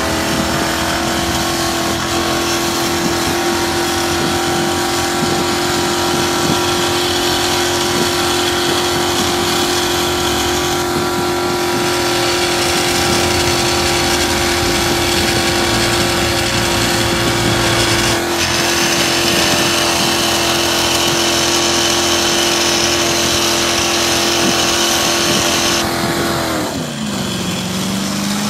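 Small electric motor of a homemade model pickup truck running with a steady whine. Its pitch drops sharply near the end, as if it slows under load, then climbs back up.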